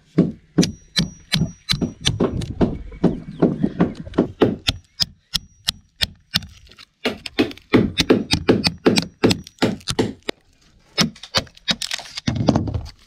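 Hammer blows on a chisel driven into an old oak boat frame, about three sharp strikes a second with brief pauses around four and ten seconds in, the wood cracking and splintering. The frame is still solid oak and resists splitting.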